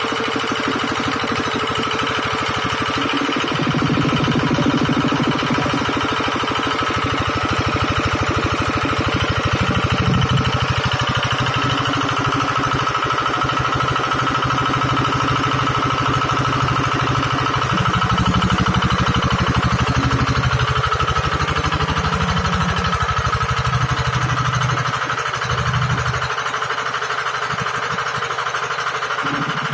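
Engine of a hydraulic water-well drilling rig running steadily, with a fast even beat and a constant whine higher up; its deeper note strengthens about four seconds in and again around eighteen seconds, then drops away near the end, as the load on the rig changes.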